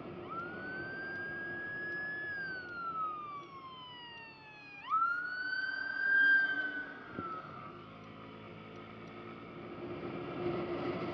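Ambulance siren wailing: its pitch rises slowly, then falls, jumps quickly back up about five seconds in, peaks loudest, and falls away again.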